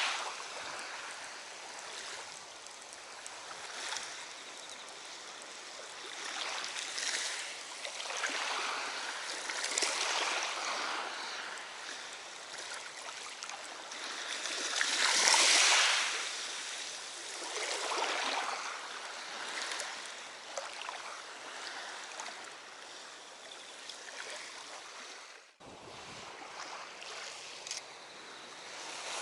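Lake water washing and lapping in waves, swelling and fading every few seconds, with a brief sudden break about 25 seconds in.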